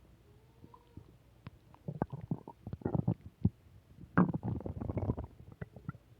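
Human stomach growling: a faint thin squeal near the start, then irregular bubbling gurgles, the longest and loudest lasting about a second from around four seconds in, with small pops between.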